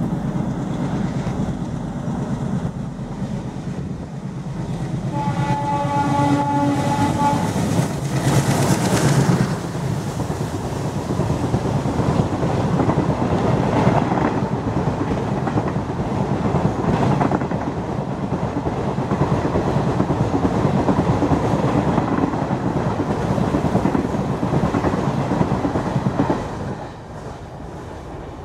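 WDM-3A diesel locomotive approaching at speed with its engine throbbing, then one horn blast of about two seconds. The locomotive and its coaches pass with a loud, continuous rumble and the clatter of wheels over the rails, which drops away suddenly near the end as the last coach goes by.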